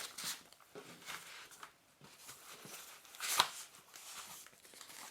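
Foam packaging pieces being pulled off the ends of a keyboard: faint, irregular rubbing and rustling, with one louder scrape about three and a half seconds in.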